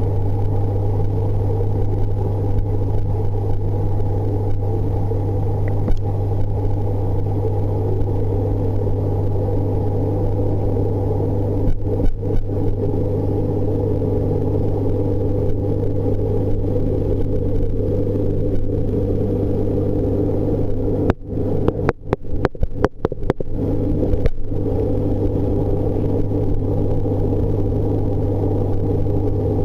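Steady mains hum of an aquarium pump running: one strong low tone with several fainter tones above it. The hum breaks up in a few brief dropouts and clicks a little over two-thirds of the way through.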